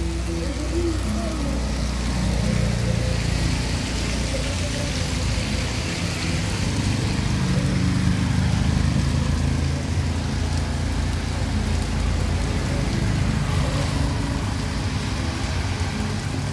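Three-wheeled motorcycle taxis driving past on a flooded street, their small engines running and their tyres hissing through the water, over steady heavy rain.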